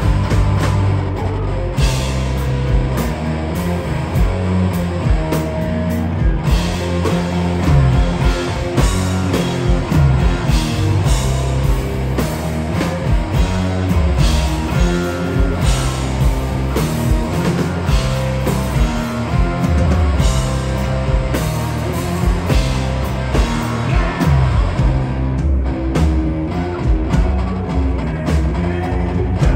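Live rock band playing loud: electric guitars over a drum kit, with frequent drum hits throughout.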